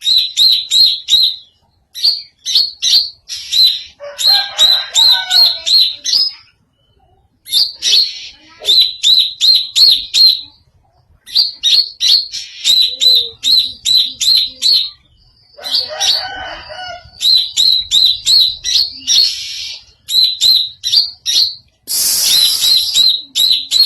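Cucak ijo (green leafbird) calling in an unusual voice: fast runs of short, sharp, high chip notes, about four or five a second, in phrases broken by brief pauses. A lower warbling comes in twice, and there is a harsh rasping burst near the end.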